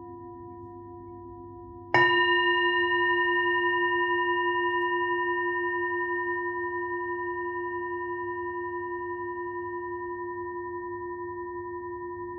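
Singing bowl struck once about two seconds in, over the fading ring of an earlier strike. Its several steady tones ring on with a slight wavering pulse and slowly fade.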